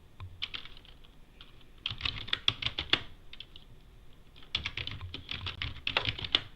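Typing on a computer keyboard in three bursts of quick keystrokes: a short run near the start, a longer one about two seconds in, and another from about four and a half seconds in.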